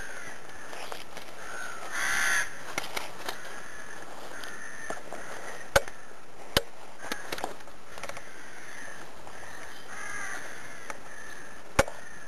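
Crows cawing over and over in the trees, the loudest call about two seconds in. Three sharp clicks cut through, two about six seconds in and one near the end.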